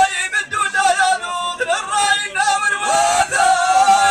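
A man chanting sung Amazigh verse into a microphone, amplified through loudspeakers, in a melodic line with long held notes.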